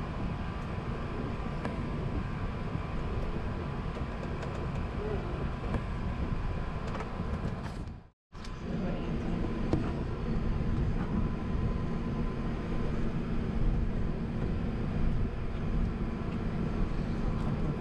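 Steady low rumble of an Airbus A380's cabin and engines, heard from a window seat on the upper deck. About eight seconds in it drops to silence for a moment, then returns a little louder.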